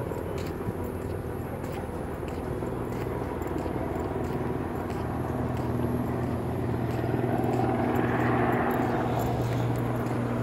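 Helicopter flying overhead, a steady rotor and engine drone that grows louder, peaking about eight seconds in.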